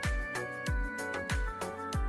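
Background music with a steady beat: a deep kick drum about every two-thirds of a second under held synth-like chords.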